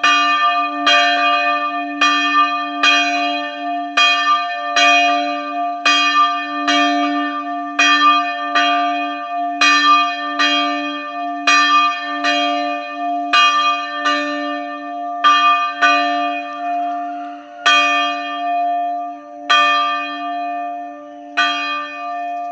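Church bell ringing, struck about twice a second with a lasting hum between strokes, then slowing to a stroke every two seconds or so over the last few seconds.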